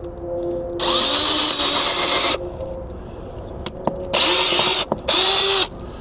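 Cordless drill pre-drilling small pilot holes with a small bit in short triggered bursts: one longer run of about a second and a half, then two short bursts near the end, each with a motor whine rising as it spins up. The holes go through metal.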